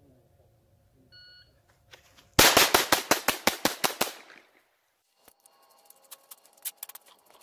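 A short electronic beep, like a shot timer's start signal, then a Glock 44 .22 LR pistol fired in a fast string of about ten shots, roughly six a second, about a second later. Faint clicks and handling knocks follow.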